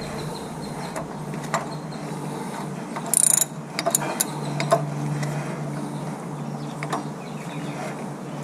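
Hand wrench working the centre bolt of a harmonic balancer puller on a Ford 302 V8: scattered metallic clicks and a brief metal clatter about three seconds in, over a steady low hum.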